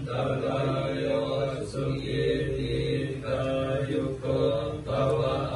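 Buddhist monks chanting together in a monotone, several voices holding one low, steady pitch in phrases that rise and fall about once a second.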